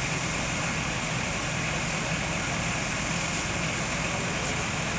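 Fire engine running steadily with its pump feeding charged hose lines, a constant mechanical drone over a hiss of noise.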